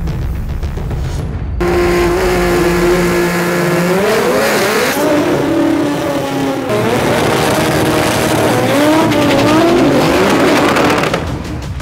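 Turbocharged Nissan GT-R drag car engine revving hard at the start line, with tyre squeal. It comes in loud about a second and a half in and climbs in pitch, then after a break it runs again with wavering, rising revs as the car launches. The sound drops away near the end.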